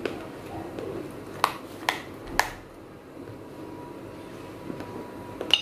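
Sharp cracks of dry fired clay (tiny clay pots) being crunched: three short ones between about one and a half and two and a half seconds in. Near the end comes a single ringing clink of clay against a glass plate.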